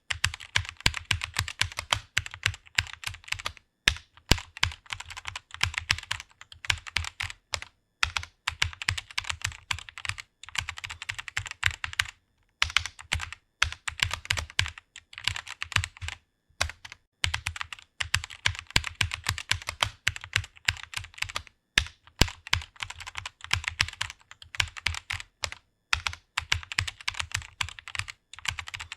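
Fast typing on a computer keyboard: rapid runs of key clicks broken by brief pauses every few seconds.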